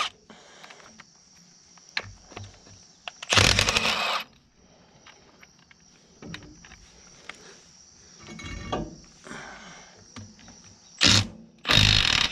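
Milwaukee Fuel cordless impact wrench hammering bolts loose on a tractor's rear axle housing in short bursts: the longest about three seconds in, two more near the end.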